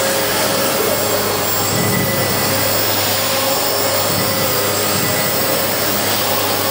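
Small radio-controlled helicopter hovering low: a steady whine and whir from its motor and rotor blades, holding an even pitch and level.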